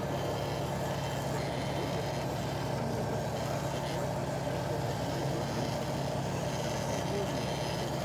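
Radio-controlled model truck or construction machine running with a steady diesel-like engine rumble: a constant low hum over a fast, even beat that does not change.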